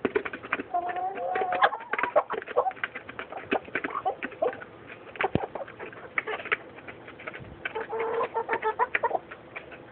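Chickens pecking at a feed dish, their beaks making rapid irregular clicks, with soft clucks and trilling calls about a second in and again near the end.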